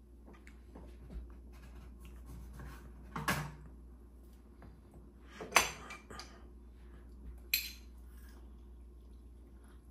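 Kitchen clatter of metal utensils and dishes: three sharp clinks about two seconds apart, the middle one loudest, with softer ticks between, as a knife and a metal hand lime squeezer are handled over the limes.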